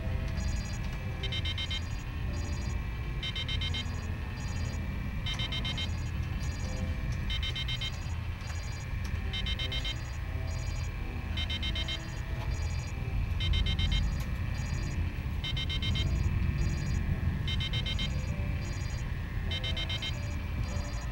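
Electronic warning alarm: a burst of rapid high beeps, then a burst of lower rapid beeps, repeating about every two seconds over a steady low rumbling drone. It is a spacecraft cockpit alert signalling an emergency.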